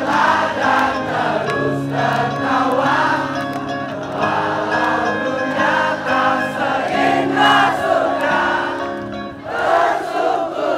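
Live band playing a song with singing, and a crowd of many voices singing along.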